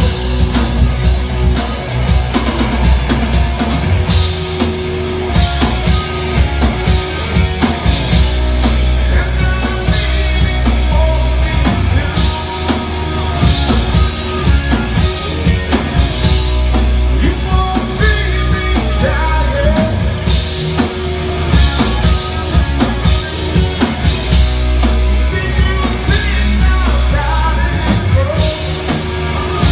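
Live rock band playing a full-band instrumental passage, with drum kit, bass and electric guitar.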